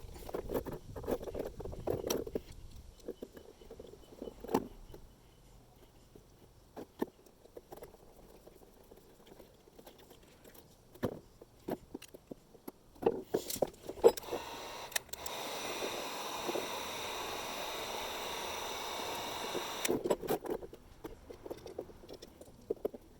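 Small clicks, knocks and scrapes of metal fittings, hose and a hose clamp being handled and fitted together. About two thirds of the way through, a steady noise of unclear source runs for about five seconds.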